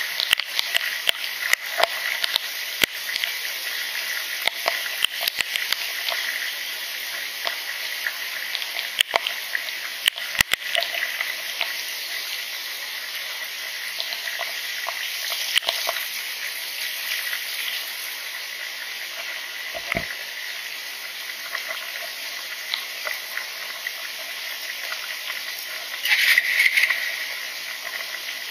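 Heavy rain falling: a steady hiss dotted with many sharp ticks of drops striking close by, with a brief louder rush of noise near the end.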